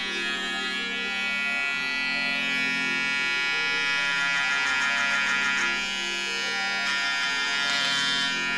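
Pop Barbers P600 electric shaver running steadily with a loud buzz.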